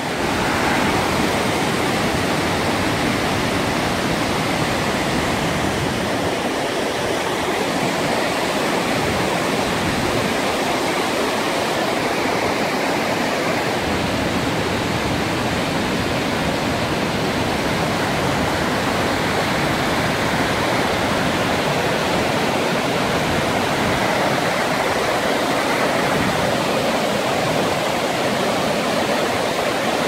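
Låtefossen, a twin waterfall in heavy flow, with a steady, dense rush of falling water that stays even throughout.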